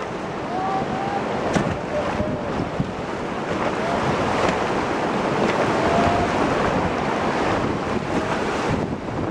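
Rushing river rapids: steady churning whitewater around an inflatable raft, with wind buffeting the microphone.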